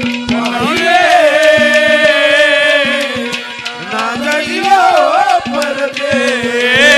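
Haryanvi ragni folk music played on ghadwa (clay pot drum) and benju: a sliding, wavering melody over a steady drone note, with quick sharp taps of hand percussion.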